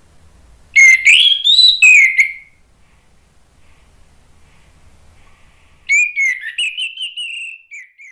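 Orange-headed thrush singing: two loud whistled phrases of quick rising and falling notes, the first about a second in and the second near the end.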